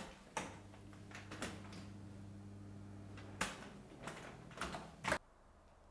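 Built-in electric oven's rotary selector knob clicking as it is turned, then a low steady hum from the switched-on oven for about three seconds, with a few more clicks as the buttons by the display are pressed. The sound cuts off suddenly a little after five seconds in.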